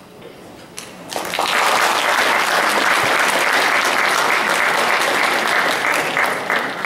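Audience applauding, breaking out about a second in and holding steady, then dropping away right at the end.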